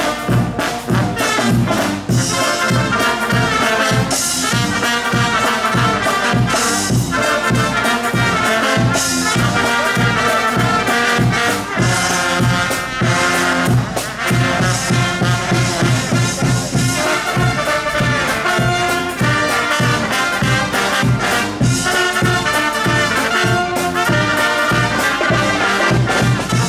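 Brass band playing a tune: trumpets and trombones over a bass drum keeping a steady beat of about two a second.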